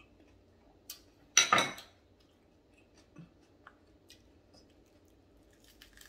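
A china dinner plate clattering once on the counter as it is handled and lifted, about a second and a half in, with a small click just before it and a few faint taps of handling afterward.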